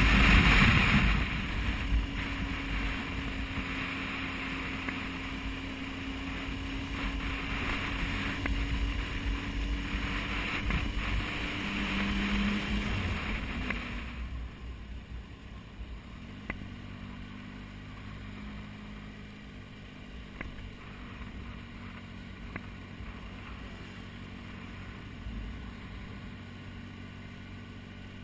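Adventure motorcycle's engine running at road speed with heavy wind rush on a bike-mounted camera. About halfway through, the wind drops away suddenly and the engine runs quieter and steadier at low speed.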